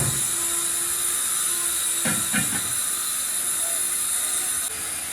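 Steady, high-pitched hiss of air that cuts off suddenly near the end, with a sharp knock at the start and two dull thumps about two seconds in.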